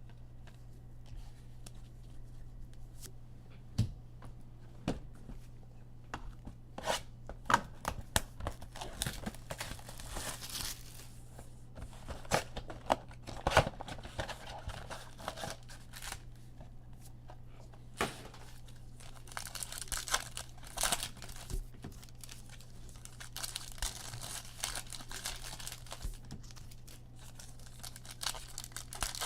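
Foil trading-card pack wrappers being torn open and crinkled, in irregular spells of crackling and short rips, with the cards being handled.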